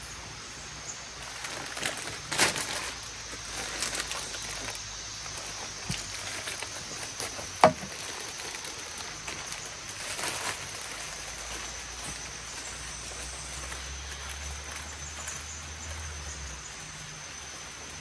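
Spoon stirring soap into a small cup of liquid: faint scraping and rustling, with one sharp click a little under eight seconds in, over a steady high-pitched whine in the background.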